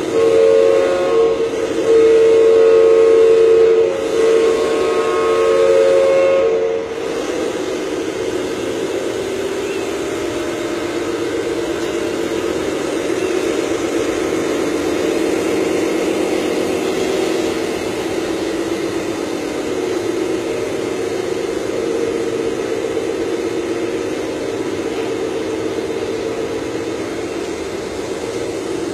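An RC scale dump truck's sound unit sounding a two-tone horn in several blasts over the first seven seconds, the longest about two seconds, then a steady engine-like drone that wavers slightly as the truck drives.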